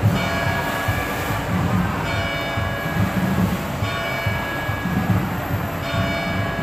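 Church bell struck about every two seconds, four strokes in all, each ringing on and fading under the next, over a low rumble.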